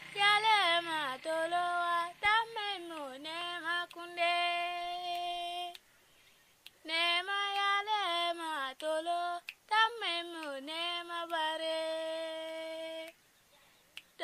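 A high voice singing melodic phrases that glide up and down and settle on long held notes, in two long phrases with a pause of about a second between them.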